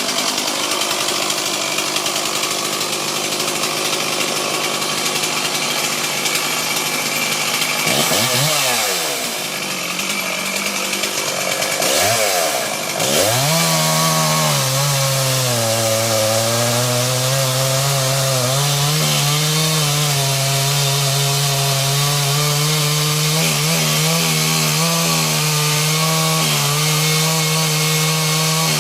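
Chainsaw running at high revs while making the back cut through a tree trunk. The revs drop and climb back twice, about a third of the way in, then settle into a steady high note under load.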